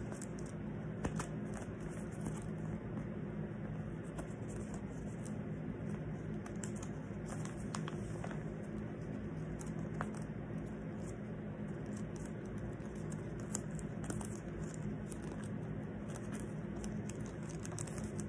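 Sticky tape and a paper poster being handled: scattered small scratches, clicks and crinkles over a steady low hum.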